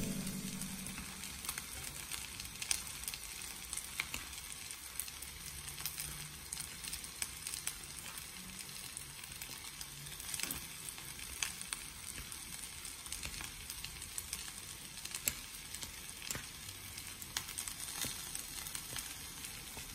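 Bibimbap sizzling in a hot stone pot (dolsot): a steady, faint hiss scattered with many small crackles and pops as the rice and toppings sear against the hot stone.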